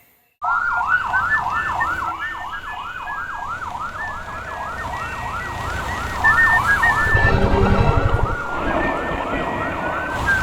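Electronic yelp-style siren wailing in quick rising-and-falling sweeps, about two to three a second, with a low rumble briefly underneath partway through.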